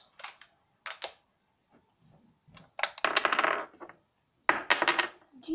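Small metal Power Coins clinking and clattering together in the hand: a few separate clicks, then a rapid run of clinks about three seconds in and another short cluster with a faint metallic ring near the end.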